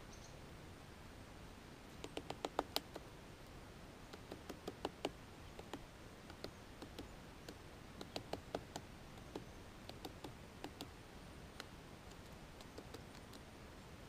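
Great spotted woodpecker hammering with its bill at a cone wedged in its forge, a crack in a pine trunk: faint sharp taps, a quick run of them about two seconds in, then irregular single pecks and short bursts.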